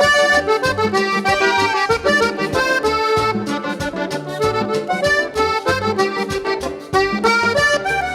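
Instrumental break of an accordion-led dance band: the accordion plays the melody over a pulsing bass line and steady percussion.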